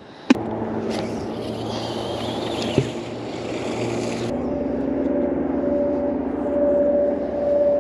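A steady engine drone, with two brief sharp knocks in the first three seconds.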